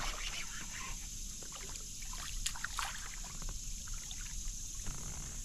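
Light water splashing and dripping beside a kayak as a hooked smallmouth bass is brought in and released, with two sharp clicks a little past the middle.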